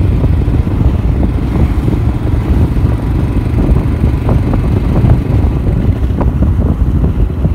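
Wind buffeting the microphone on a moving motorcycle, a loud, steady low rumble with the bike's running and road noise underneath.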